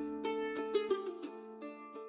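Background music of plucked strings, mandolin- or ukulele-like, fading toward the end.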